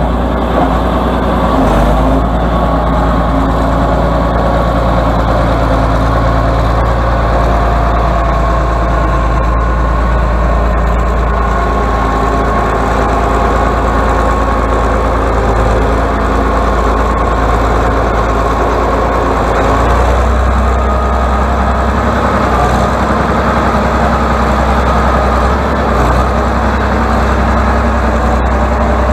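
Atlas 1602 wheeled excavator's diesel engine running steadily as the machine drives slowly, its engine note shifting about twenty seconds in.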